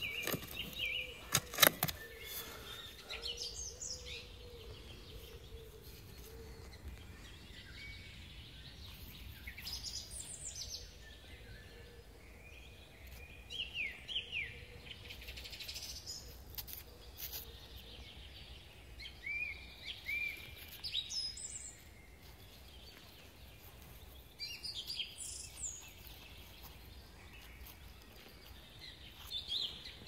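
A few sharp knocks of a spade striking the soil in the first two seconds, the loudest sounds here. Then songbirds call in short falling chirps, a handful of times, over faint outdoor background noise.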